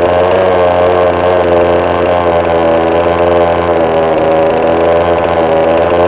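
Small combustion engine of an RC car running steadily at high revs, its pitch wavering only slightly.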